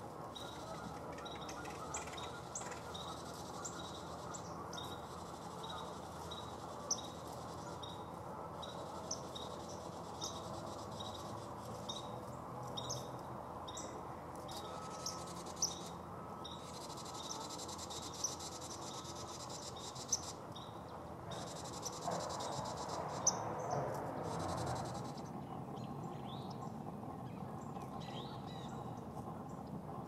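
Outdoor field ambience: short high chirps repeating about once or twice a second over a steady low background noise, with a louder noisy stretch lasting a few seconds about three-quarters of the way in.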